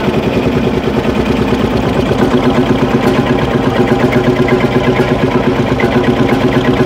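Field Marshall tractor's big single-cylinder, horizontal-cylinder two-stroke diesel idling with a steady rhythmic beat, just after being started by hand.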